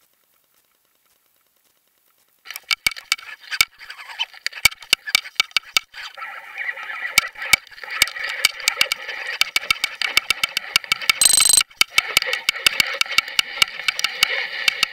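Underwater fishing camera being trolled through the water: dense, irregular clicking and rattling over a steady hum, starting suddenly about two and a half seconds in. A short burst of hiss comes just after eleven seconds.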